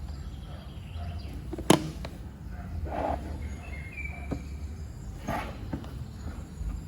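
Handling of a small toolbox, with one sharp click a little under two seconds in and a few soft knocks and rustles after it. A brief bird chirp sounds in the background.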